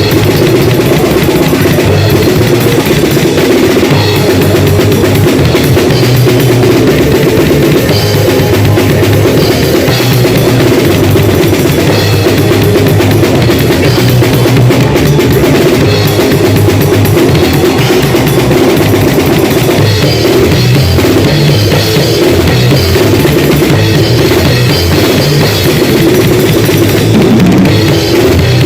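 A drum kit played loudly and without a break, bass drum and snare hitting under a steady wash of cymbals.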